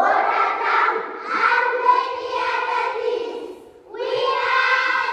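A group of children singing together in unison, holding long notes. The singing breaks off briefly a little before four seconds in, then starts again.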